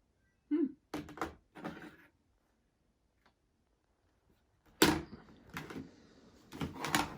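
A series of handling knocks and clatters, with a sharp loud knock about five seconds in and another cluster of clatters near the end.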